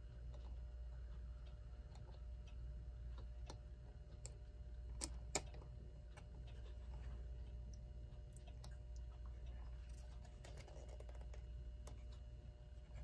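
Faint, irregular small clicks and taps of metal clock parts being handled as the plate of an electric clock movement is fitted, two sharper clicks about five seconds in, over a steady low hum.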